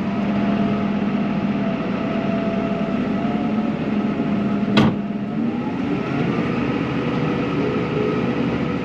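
Tractor engine running steadily, heard from inside the closed cab as a low, even hum. About five seconds in, a single sharp click.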